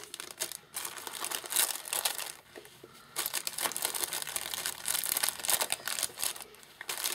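Clear plastic packaging crinkling as it is handled, in irregular rustling spells with a short lull about two and a half seconds in.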